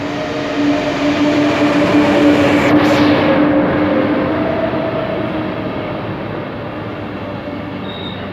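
ÖBB Railjet passenger train rolling past close along the platform: rumbling wheels with a steady whine that sinks slightly in pitch. It is loudest about two to three seconds in, then fades.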